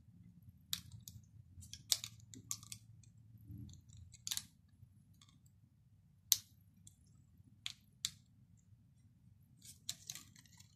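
Faint, scattered sharp clicks and crinkles of gloved hands handling the plastic body parts and flex ribbon cable of a partly reassembled DSLR as the cable is worked into place, over a faint low hum.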